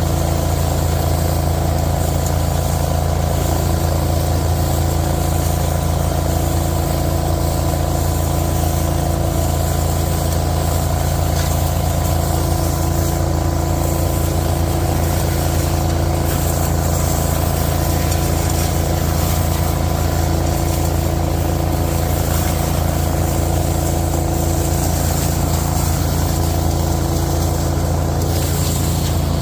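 Giant industrial leaf vacuum machine running steadily: its motor and blower drone at an even, unchanging pitch.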